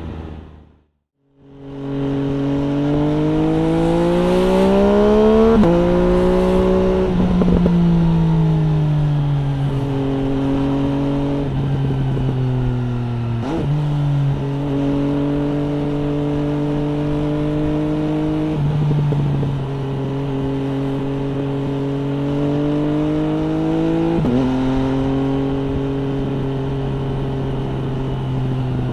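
MV Agusta Brutale 800 RR inline three-cylinder engine through an aftermarket FF by Fresco exhaust, under way: the revs climb, step down at a gearshift, fall off as the throttle closes, then cruise fairly steadily with further gear changes. Short sharp pops come from the exhaust around the gear changes and on closing the throttle. The sound cuts out briefly about a second in.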